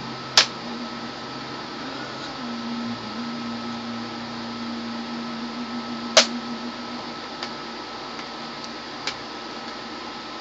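Sharp plastic clicks as a laptop keyboard is pried and popped loose: two loud snaps about six seconds apart, then a few fainter ticks, over a steady background hum.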